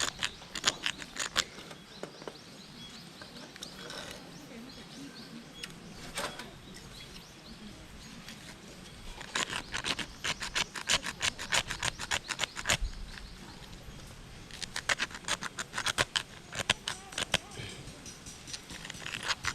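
Knife blade scraped hard and fast along a magnesium fire-starter block, in two runs of rapid strokes starting about nine and fifteen seconds in, with a few single scrapes before them.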